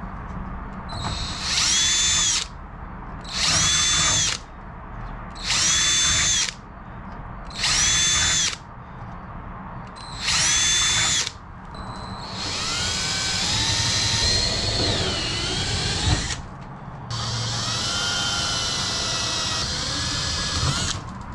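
Cordless drill opening up paint-filled rivet holes in a wing spar: five short runs of about a second each, two seconds apart, each spinning up and winding down, then two longer runs of about four seconds with the pitch wavering as the bit cuts.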